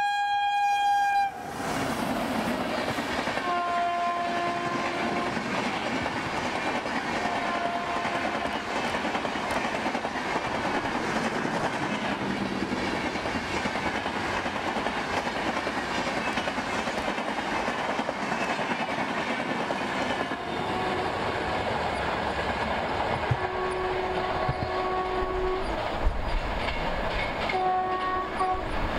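Indian Railways electric passenger trains passing at speed, wheels rumbling and clattering on the rails, with the locomotive horn sounding several times. A loud horn blast cuts off abruptly about a second in, shorter horn notes follow a few seconds later, and a longer horn sounds near the end.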